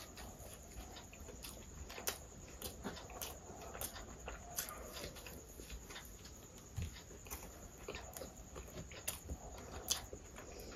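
Close-miked chewing: a person eating with the mouth open, making a quick, irregular run of sharp mouth clicks and smacks.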